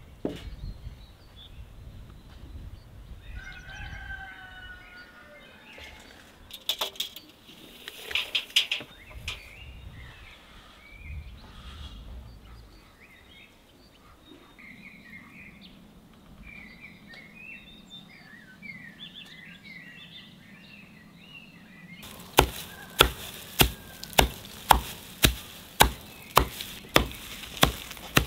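Birds chirping, with a few sharp knocks near the middle. About three-quarters of the way in, a loud run of sharp, evenly spaced chopping strikes begins, about two a second, as straw is chopped on a wooden block.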